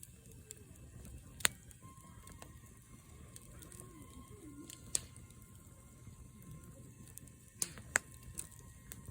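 Wood campfire crackling: a few sharp pops stand out over a low steady rumble, one about a second and a half in, one about five seconds in, and two close together near the end.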